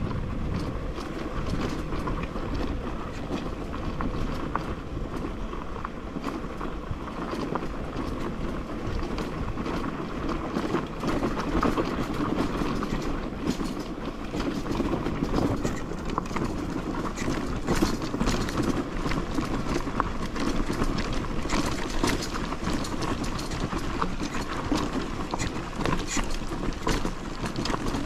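Crossfire HJ250 dirt bike ridden over a loose rocky track: the engine running under a constant irregular clatter and crunch of stones under the tyres.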